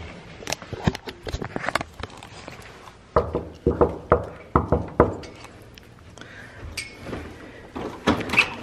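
Knuckles rapping on a hotel room door: a run of about six or seven sharp knocks over two seconds, starting about three seconds in. Footsteps and clicks before it.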